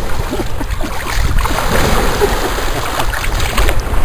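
Shallow seawater washing and splashing around a small Yorkshire terrier paddling in the surf, with a few sharper splashes in the last second or so.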